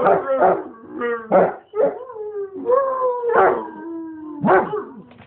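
Basset Hound howling: a run of short bays and a long drawn-out howl in the middle that slides slowly down in pitch.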